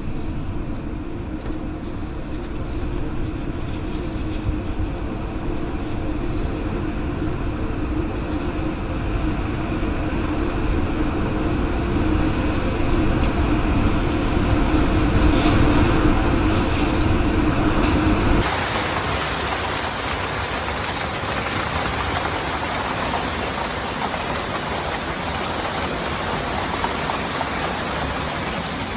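A steady low rumble under storm noise. About two-thirds of the way in it cuts abruptly to an even, steady hiss of heavy rain.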